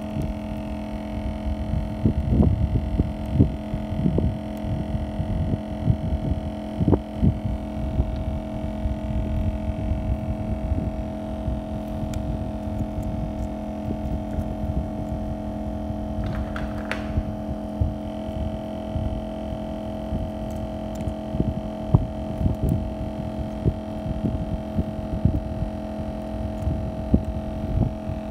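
Steady electrical hum of several tones that never changes, under irregular low bumps and knocks of handling. A brief scraping hiss comes about sixteen seconds in.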